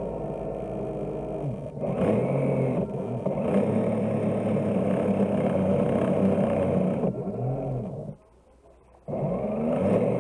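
The drive motor of a radio-controlled model push tug, heard from its onboard camera. It runs with a whine that swoops up and down in pitch as the throttle changes, cuts out about eight seconds in for roughly a second, then starts again.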